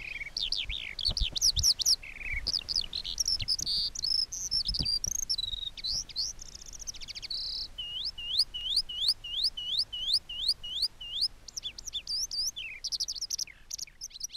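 Skylark singing: a long, unbroken stream of fast, varied high chirps and trills, with a run of repeated rising notes in the middle.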